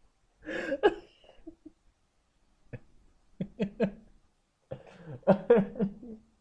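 A man laughing in bursts: a short outburst about half a second in, then two runs of quick 'ha' pulses.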